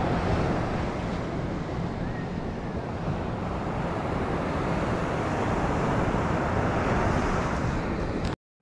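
Steady rushing of wind on the microphone and surf on a beach, strongest in the low end, cutting off suddenly near the end.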